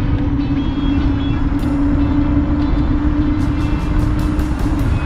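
Electric mobility scooter riding along a paved road: a steady motor whine over continuous low rumble, with a run of sharp clicks or rattles starting a little past halfway.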